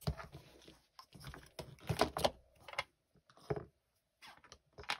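Handling clicks and knocks as the loose pieces of a small snap-together storage crate are fitted and clicked back into place, about eight irregular taps and clicks.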